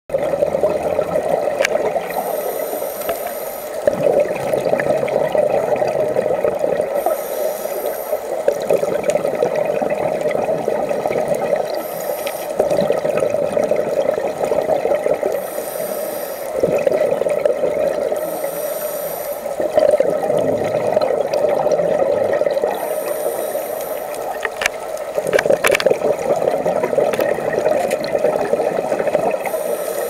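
Scuba diver breathing through a regulator, heard underwater: a short high hiss on each inhale every few seconds, then a louder rush of exhaled bubbles, about seven breaths in all, over a constant bubbling background. A few sharp clicks stand out.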